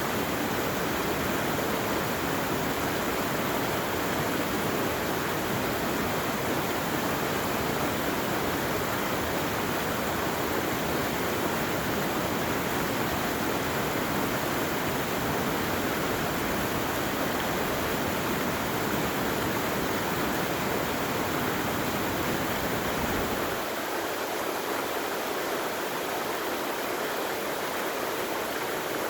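Steady rushing of a stream or small waterfall, with even water noise throughout. Near the end the deeper part of the rush drops away, leaving a thinner sound.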